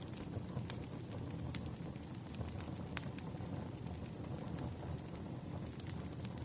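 Wood fire crackling: a steady low rumble with sharp pops at irregular intervals.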